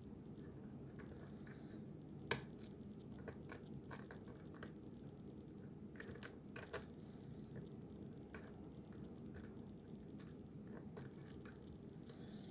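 Small, irregular clicks and taps of a lock pick and tension wrench working the pin stack of a five-pin deadbolt cylinder during single-pin picking. One sharper click comes about two seconds in and a close pair a little past halfway.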